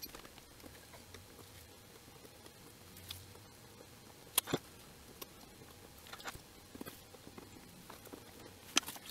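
Quiet handling sounds while soldering on a perfboard: a few light clicks and taps from the soldering iron, wire and board in its holder. Two close together come about four and a half seconds in, and another pair near the end.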